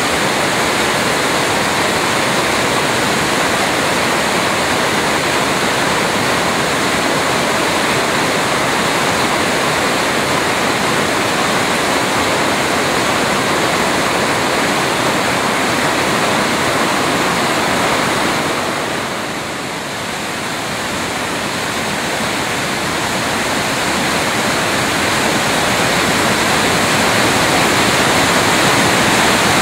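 Bad Urach waterfall in flood, swollen by days of unbroken rain: a steady, loud rush of falling water. It dips briefly about two-thirds of the way through, then builds up again.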